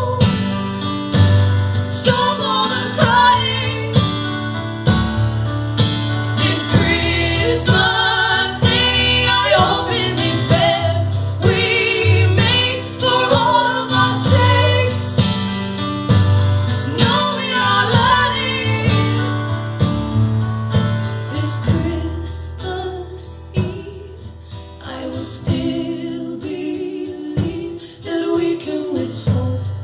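Live acoustic guitar strumming with female singing, getting quieter in the last several seconds.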